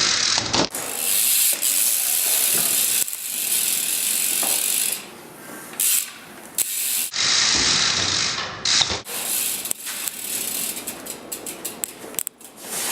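BMX bike's freewheeling rear hub ratcheting, with loud stretches of rushing noise and a run of fast clicks near the end.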